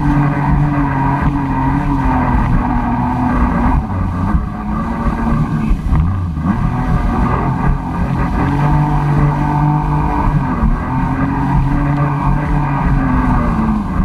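Jet ski engine running at speed, its pitch dipping and coming back up twice, with heavy wind and water rush on the microphone.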